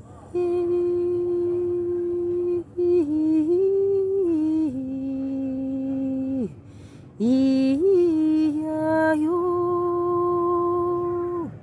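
A woman humming a slow, wordless meditation chant in long held notes. It comes in three phrases with short breaths between them, the pitch stepping up and down between a few notes.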